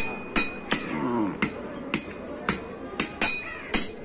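Hand hammer striking a red-hot iron blade on an anvil while forging a knife: about nine ringing metal-on-metal blows, roughly two a second and slightly uneven.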